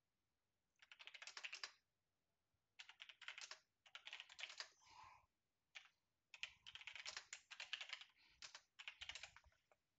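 Quiet typing on a computer keyboard: about six quick runs of key clicks with short pauses between.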